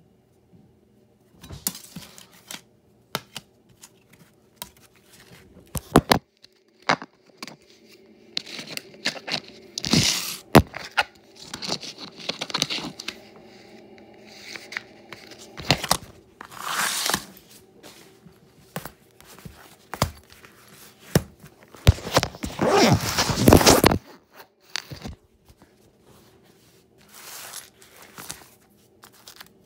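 Hands handling loose DVD discs: a string of sharp clicks and clacks as the discs knock together, mixed with irregular rustling, the longest stretch lasting about two seconds about three-quarters of the way through.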